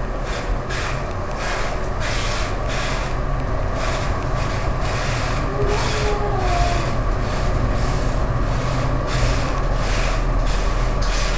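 Old tram running along its rails, heard from on board: a steady low rumble of motors and wheels with an even, rapid pulsing of rail noise about two to three times a second.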